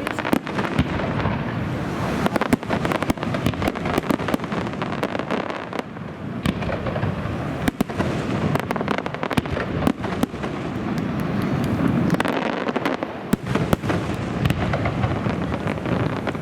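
Fireworks display going off: a dense, continuous crackle of bursting shells with many sharp bangs scattered throughout.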